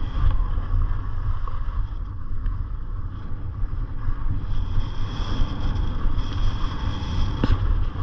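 Wind buffeting a skier's camera microphone as a low, uneven rumble, with skis hissing and scraping over groomed, packed snow. A sharp click near the end.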